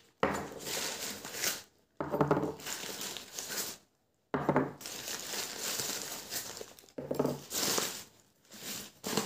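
Newspaper packing rustling and crinkling in several separate bursts as small clay cups are unwrapped and lifted out of a cardboard box.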